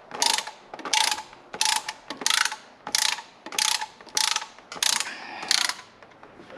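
Hand ratchet wrench being cranked in about nine short, evenly spaced strokes of clicking, roughly one and a half a second, stopping near the end.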